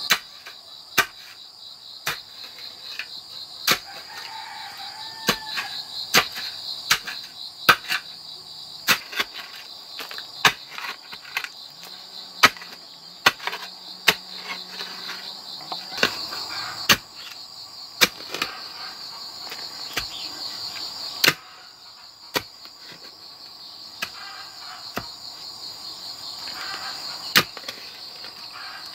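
Sharp thuds, irregularly about once a second, of a wooden pole being jabbed into soil to dig a post hole, over a steady high chorus of insects.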